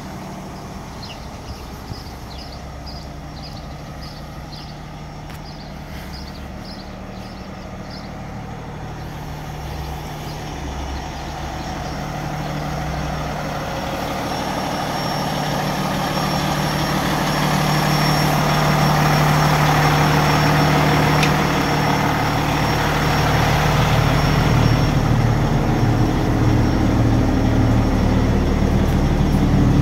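Diesel engine of an E-One tower ladder fire truck idling steadily, growing louder through the middle as the sound comes closer to the truck.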